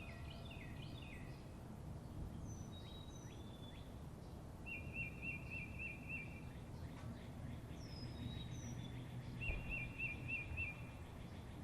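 Songbirds calling and singing over a steady low background rumble: a cluster of quick falling chirps at the start, scattered higher calls, and twice a short run of five or six evenly repeated notes.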